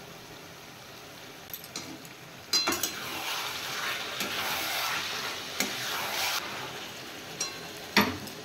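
Metal spatula stirring ginger, green chilli and garlic paste into chicken and potatoes frying in a metal kadai: sizzling with scrapes and clicks of the spatula on the pan. A sharp knock about two and a half seconds in as the stirring starts, and another near the end.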